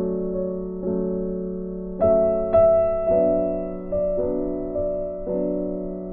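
Slow, gentle piano background music: notes and chords struck about every half second to a second, each one fading away before the next.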